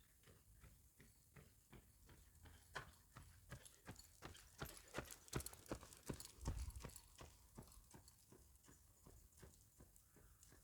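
A faint, quick series of clicks or taps, several a second, loudest in the middle.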